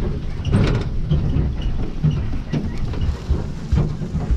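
Pickup truck driving slowly over rough, sandy pasture ground: a low rumble with irregular rattling and knocking from the truck bouncing on the uneven ground.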